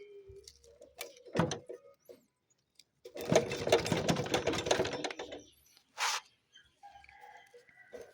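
Tools at work taking the cylinder head off a scooter engine. A few knocks, then a rapid mechanical rattle for about two seconds as a tool spins the head bolts loose, then one more short clank.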